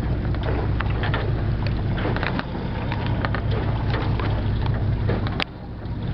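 Boat engine running with a steady low drone, with scattered knocks and clicks over it. A sharp click comes about five and a half seconds in, after which the drone is quieter.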